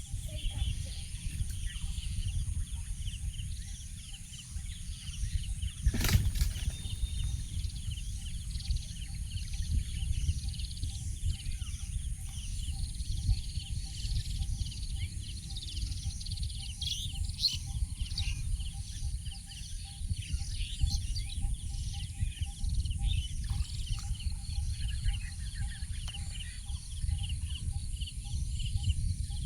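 Outdoor rural ambience: many small bird chirps and a steady high insect-like hiss over a low, uneven rumble, with one sharp knock about six seconds in.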